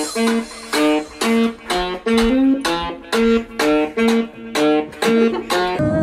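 Background music: a plucked guitar melody, single notes about twice a second, each ringing briefly and dying away.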